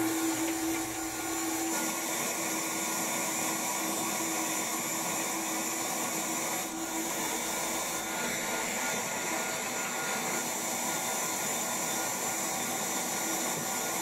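Bee vacuum running steadily, an even suction rush with a constant hum. A lower steady tone in the hum drops away about two seconds in.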